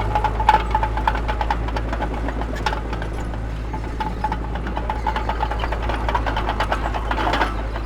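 Heavy diesel earthmoving machinery running, a steady low engine drone with many irregular metallic clanks and rattles.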